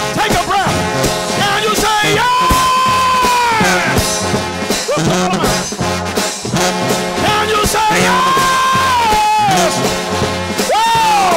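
Trombone shout band playing gospel music: a brass chorus led by trombones holds long notes that slide down at their ends, over a steady bass beat.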